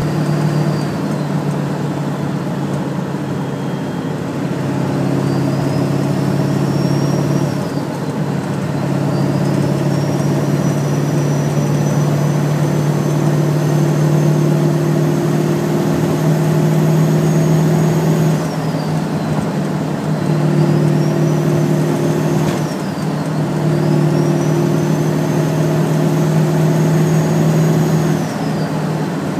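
Ford 7.3 Power Stroke V8 turbodiesel at highway speed, its turbocharger whistling loudly over the engine's steady drone. The whistle rises in pitch as the turbo spools up under throttle and drops off when the throttle lifts, four times over, with another rise starting near the end.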